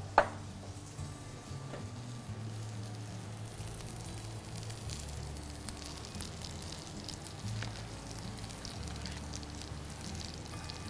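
French fries frying in hot oil: a steady, soft sizzle, with one sharp click just after the start.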